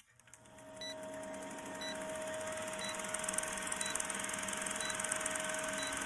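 Vintage film countdown leader sound effect: a steady hiss with a faint hum underneath, and a short high beep about once a second as each number counts down. It fades in over the first second.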